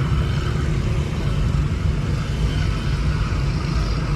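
Car driving along, a steady low engine and road rumble.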